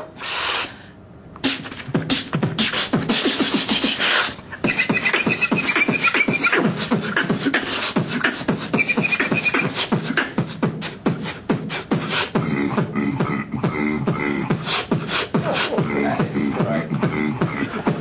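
A man beatboxing: a fast, steady beat of mouth-made kick, snare and hi-hat sounds that starts after a short pause about a second and a half in, with brief high pitched passages woven in, and a pitched low vocal line joining the beat about twelve seconds in.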